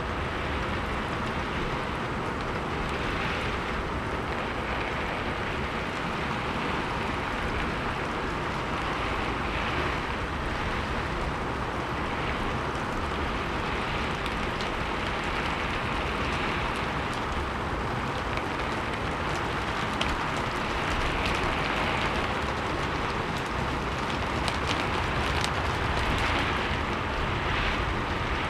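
Heavy rain driven by wind onto a roof and wooden surfaces: a dense steady patter that swells and eases every few seconds in the gusts, scattered with sharp drop ticks.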